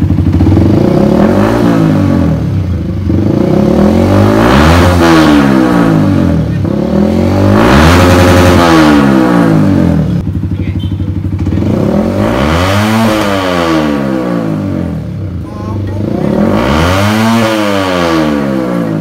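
Yamaha WR155's single-cylinder four-stroke engine, running on a newly fitted racing ECU, idling and revved hard about five times. Each rev climbs quickly and drops back to idle.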